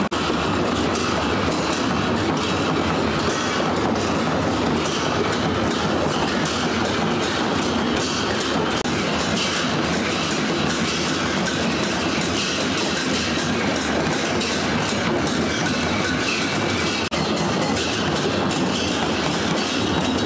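Many Newar dhimay barrel drums beaten together by a marching group, a loud, dense and unbroken clatter of strikes.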